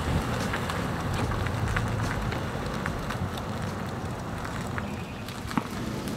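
Chevrolet sedan driving past across an asphalt lot, a steady run of engine and road noise, with wind on the microphone and a single light knock near the end.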